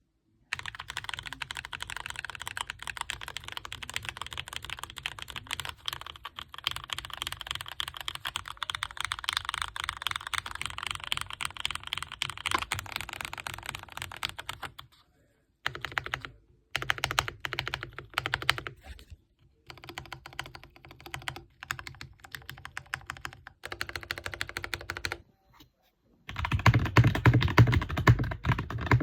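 Typing on a mechanical keyboard with Gateron Oil King linear switches: a fast, dense run of key clacks, broken by a few short pauses. It grows louder near the end.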